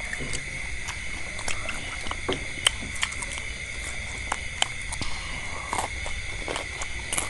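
People eating fried meatballs and vegetables: chewing and lip-smacking with many small, irregular clicks, over a steady high-pitched whine.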